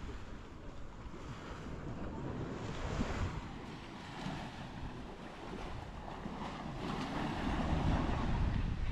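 Sea surf washing onto a beach, with wind buffeting the microphone in a heavy low rumble. The noise swells about three seconds in, and again more strongly near the end.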